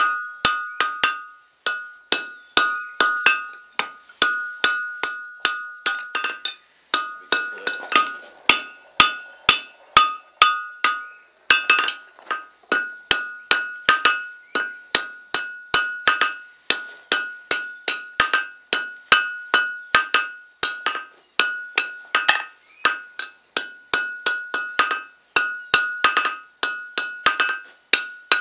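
Blacksmith's hand hammer striking red-hot steel bar stock on an anvil at about two to three blows a second, each blow followed by a high, clear ring from the anvil, with a couple of brief pauses. The hot metal is being forged and shifted off center to shape an auger bit.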